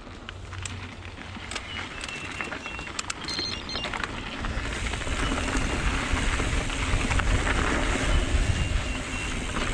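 Mountain bike rolling along a dirt trail: tyres crunching over the ground with scattered small clicks and rattles, and wind rushing over the helmet camera, getting louder and heavier about halfway through as speed picks up.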